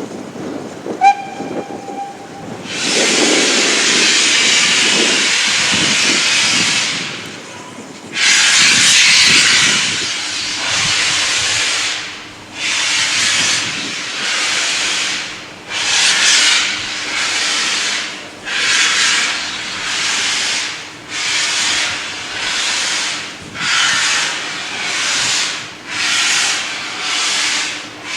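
Steam locomotive giving a short whistle, then a long steady hiss of steam, then starting away with slow, evenly spaced exhaust chuffs about once a second.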